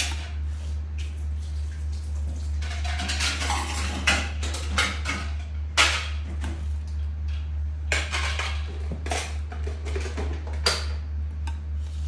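A spoon clinking and scraping against a stainless-steel bowl in scattered, irregular knocks, over a steady low electric-fan hum.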